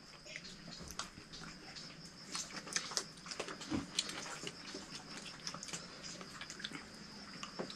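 Faint scattered clicks and taps of people eating from metal plates and bowls, over a steady faint high-pitched whine.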